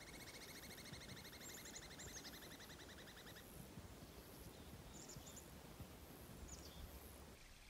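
Faint songbird song: one bird gives a long, fast, dry trill of about three and a half seconds, and a few short, high, falling chirps come later. Under it is a faint outdoor hush with low wind rumble on the microphone.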